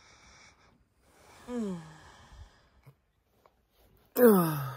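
A woman sighing aloud twice, each time in a voiced, falling moan: a soft one about a second and a half in, and a louder, breathier one near the end.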